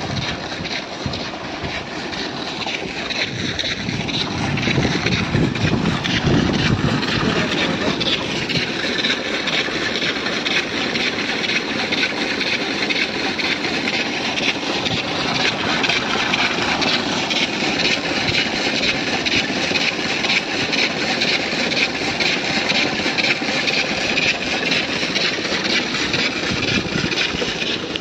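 Heavy farm machinery running steadily, a loud continuous mechanical clatter that grows louder about four seconds in.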